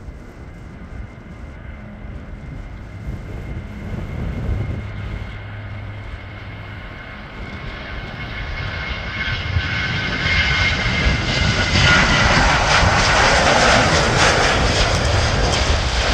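Twin-engine jet airliner at takeoff thrust, its engine noise building steadily and loudest from about three quarters of the way through as it rotates and lifts off.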